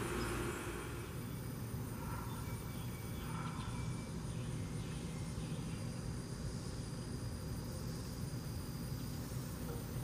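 Steady low outdoor rumble, with a few faint short chirps about two to four seconds in.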